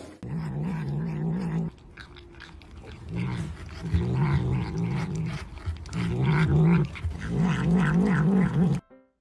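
A cat growling in repeated low, wavering bouts while licking and chewing at a food cup held in its paws.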